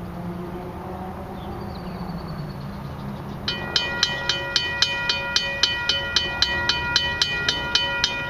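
Level crossing warning bell starting to ring about three and a half seconds in, about two strikes a second: the crossing signals have activated for an approaching train. Before it, a low steady hum.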